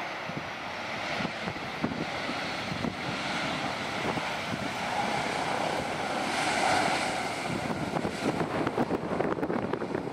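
Boeing 737-700's CFM56-7 jet engines running as the airliner rolls out along the runway after landing, a steady roar that swells and brightens around the middle. Wind buffets the microphone with low rumbling thumps, more so toward the end.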